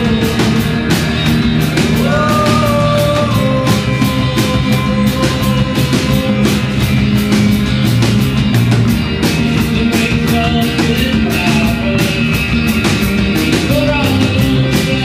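Live band playing an upbeat song: full band with a steady, quick drum beat under guitar and held tones.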